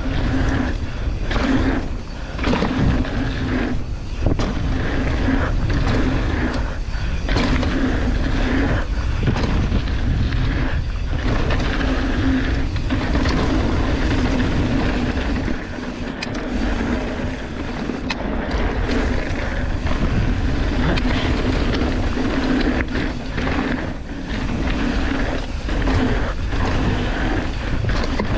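Mountain bike ridden fast down a dirt and gravel trail: tyres rolling and the bike rattling over the bumps, with wind rushing over the camera's microphone. Steady throughout, easing slightly for a moment a couple of times.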